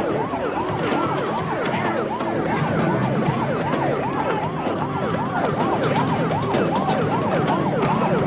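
Police siren wailing in quick rising-and-falling sweeps, about two a second.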